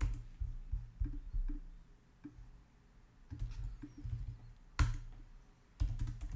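Typing on a computer keyboard: scattered keystrokes and soft thuds, with one sharper click about five seconds in.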